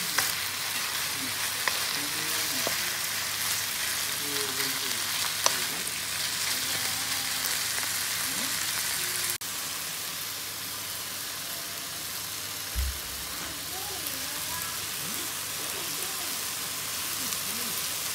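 Diced chicken and onion sizzling steadily in a hot wok as they are stir-fried with a wooden spatula, with a few sharp clicks in the first few seconds and a brief dull bump about two-thirds of the way in.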